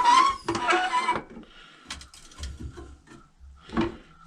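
A door creaking open on a squeaky hinge for about a second, followed by scattered knocks and clicks.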